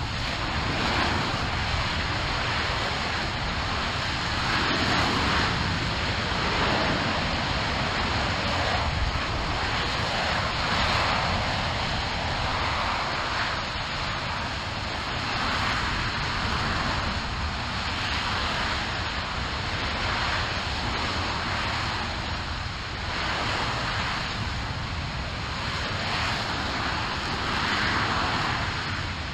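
RS-25 liquid-hydrogen/liquid-oxygen rocket engine firing on a test stand: a steady, dense noise that rises and falls slightly in level.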